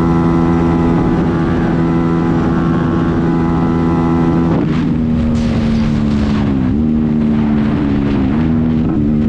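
Bajaj Pulsar 200AS single-cylinder engine held at a steady high pitch near top speed, heard from the rider's seat with wind rushing over the microphone. About four and a half seconds in, the sound cuts to a second motorcycle at speed, whose engine note dips briefly a few times.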